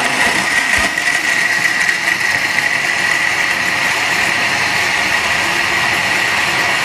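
Electric countertop blender running steadily with a high whine, blending mango lassi.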